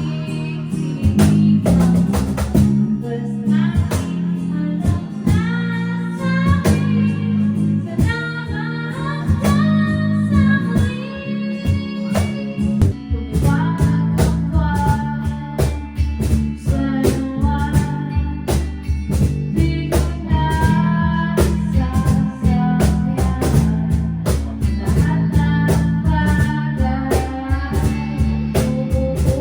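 A rock band playing live: a singer over electric guitar, bass guitar and drum kit, with a steady beat.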